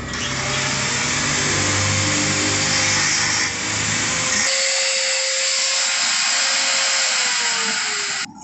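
Handheld angle grinder running, its disc grinding against a workpiece with a harsh, steady whine. About halfway through the deeper rumble drops away, and near the end the motor pitch sags slightly before the sound cuts off abruptly.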